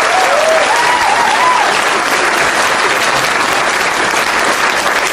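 Crowd applauding and cheering, with a few wavering whoops in the first couple of seconds, then steady clapping.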